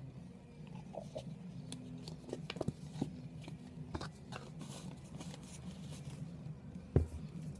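Small handling sounds of sculpting work on a model: scattered light clicks, taps and scrapes, with one sharper knock about seven seconds in, over a low steady hum.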